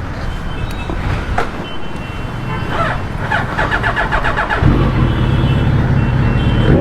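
Motorcycle engines running at idle, with a louder engine coming in about two-thirds of the way through and running steadily.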